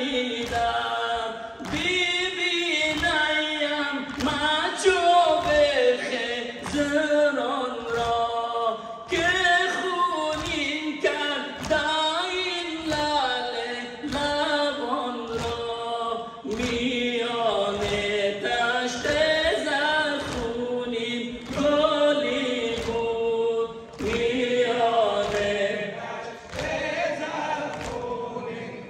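Mourners chanting a Persian noha, a Shia Muharram lament, together in phrases, over a steady beat of chest-beating (sineh-zani) at about two strokes a second.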